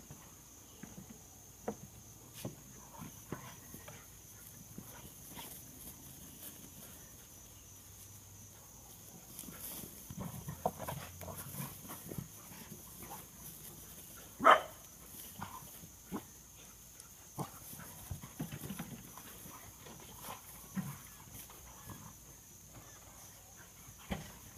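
Dogs play-wrestling, with scattered short growls and scuffling sounds, busiest in the middle, and one loud short bark about halfway through.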